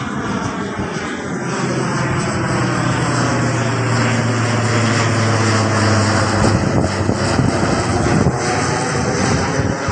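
ATR 72's two turboprop engines and propellers drone as the airliner climbs out overhead after takeoff. A steady low hum sits under the noise until about six and a half seconds in, and the sound peaks near the end.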